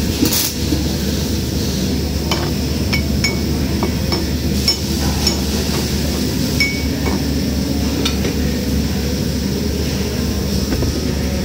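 MIG welder humming steadily after a brief crackle of the arc at the very start. About ten light, irregular metallic clinks ring from the steel workpiece between two and eight seconds in.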